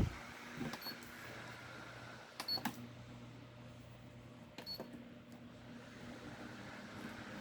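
2010 Hanil electric fan running with a steady, faint motor hum, broken by a few sharp clicks: a pair about a second in, another pair about two and a half seconds in, and one near five seconds. The hum steadies at a new level just after the second pair of clicks.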